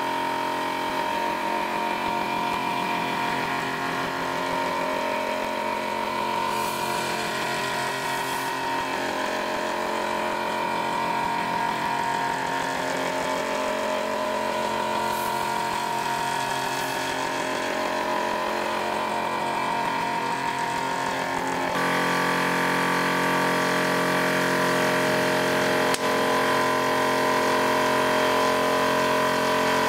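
Tormach PCNC milling machine spindle running with a steady whine while a custom single-profile form tool thread-mills an aluminium test piece. The tone shifts and grows a little louder about 22 seconds in.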